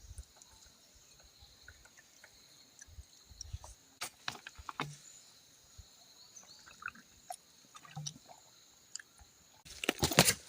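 Scattered clicks and light knocks of handling over a steady high-pitched drone, with a dense flurry of loud clicks near the end.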